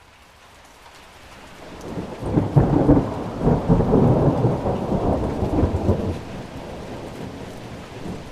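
Heavy rain with a low rumble that swells about two seconds in and eases after about six seconds.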